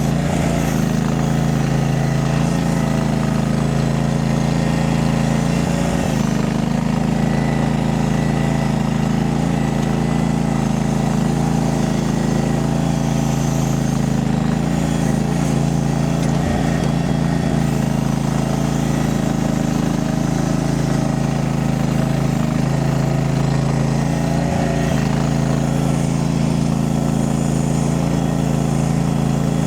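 Mini skid steer's engine running steadily under work, its pitch shifting slightly now and then.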